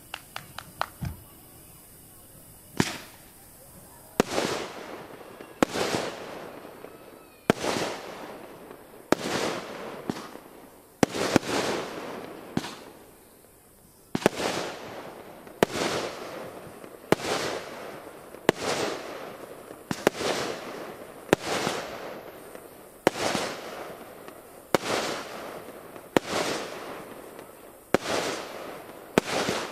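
Aerial firework shells bursting overhead one after another, about one every second and a half. Each is a sharp bang that fades away over a second or so. A quick run of small sharp cracks comes right at the start.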